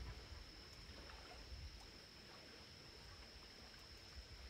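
Near silence: quiet night-time outdoor ambience with a steady faint high-pitched tone and a low rumble that fades away in the first couple of seconds.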